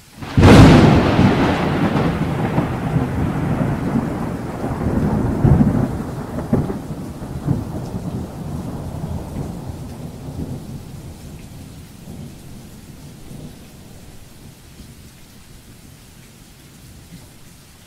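A thunderclap: a sudden sharp crack about half a second in, then a long rolling rumble with a couple of swells, fading away over about ten seconds.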